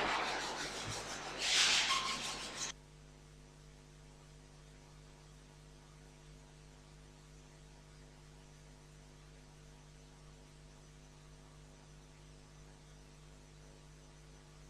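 Faint, steady electrical mains hum from the sound system. It follows a loud, noisy sound in the first few seconds, which swells again about a second and a half in and then cuts off abruptly.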